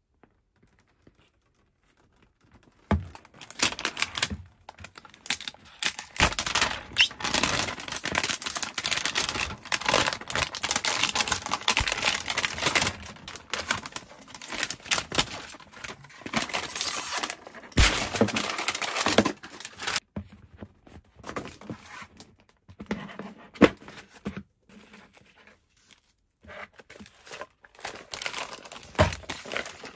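Toy packaging and wrapping being torn and crinkled by hand. It starts a few seconds in and is dense at first, then thins to sparser rustles in the last third, with a few dull thumps along the way.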